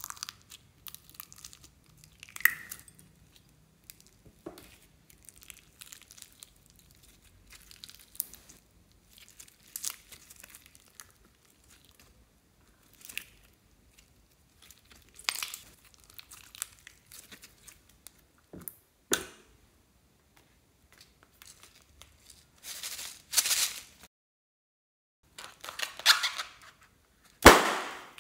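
Plastic sequins rustling and clicking in a ceramic bowl, then clear slime loaded with sequins squeezed and stretched by hand, giving irregular crackles and wet clicks in longer bursts, with one sharp click near the end.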